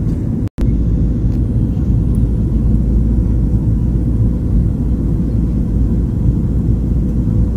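Steady low rumble of a jet airliner's engines and airflow heard inside the passenger cabin, with a faint steady hum over it. The sound drops out completely for a split second about half a second in.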